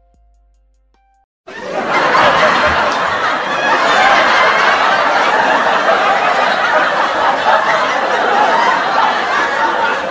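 Canned laughter from many people, as on a laugh track, starts abruptly about a second and a half in and goes on steadily and loudly. A faint tone is heard before it.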